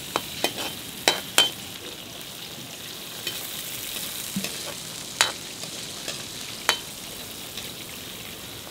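Spices sizzling in hot coconut oil in a steel wok, stirred with a metal spatula that scrapes and clinks against the wok. There are several sharp clinks in the first second and a half and a couple more around five and seven seconds in.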